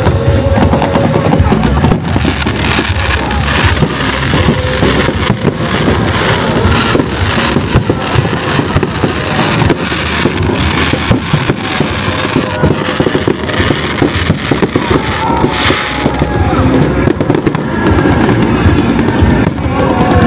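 Fireworks going off in rapid succession, a dense run of sharp bangs and crackles from aerial shells and rising comets, with music playing underneath.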